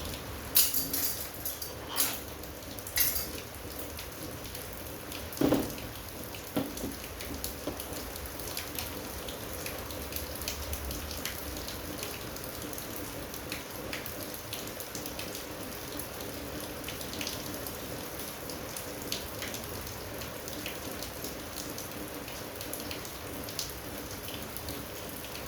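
Scrap parts from a dismantled air conditioner being handled and set down: a few sharp knocks and clacks in the first several seconds, then scattered light ticks. Under them runs a steady hiss.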